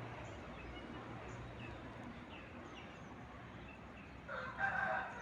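Outdoor ambience with small birds chirping faintly and repeatedly, and a louder, briefly held pitched call about four seconds in.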